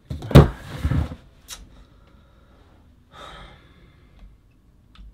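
A man lets out a loud, exasperated sigh, with a softer breath about three seconds in.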